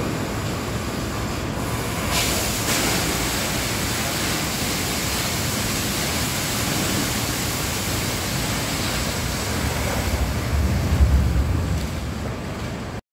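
A FireDos fire-protection water monitor spraying a powerful jet of water, a steady loud rush and hiss of spray that brightens about two seconds in. A low rumble swells near the end, then the sound cuts off abruptly.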